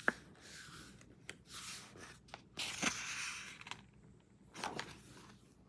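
Pages of a hardcover book being turned by hand: several soft paper swishes and a few light taps.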